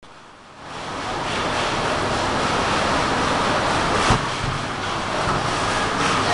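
Steady background noise of a large shopping-centre hall, rising in over the first second, with a single short knock about four seconds in.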